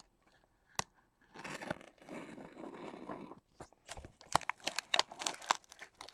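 Packing tape tearing and cardboard crackling and knocking as a trading-card case is opened: a soft rasping stretch, then a quick run of sharp crackles and clicks in the second half.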